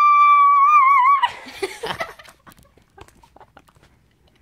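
A person's high-pitched scream: one long shrill note held for over a second that wavers near its end, then breaks into a short breathy burst, followed by a few faint knocks.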